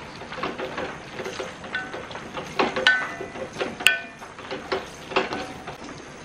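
A spatula stirring and scraping sliced onions and green masala paste in a metal kadai, with a few sharp clinks against the pan that ring briefly.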